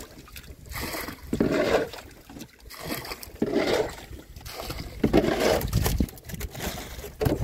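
Water being bailed out of the bottom of a small boat with a plastic bowl: repeated scoop-and-pour splashes, about five, roughly one every second and a half.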